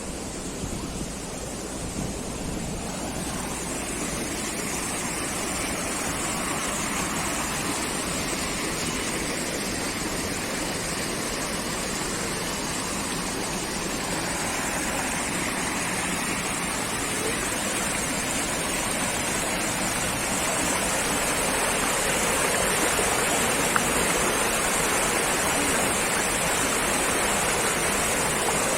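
Steady rush of flowing water from a spring-fed stream or waterfall, growing gradually louder.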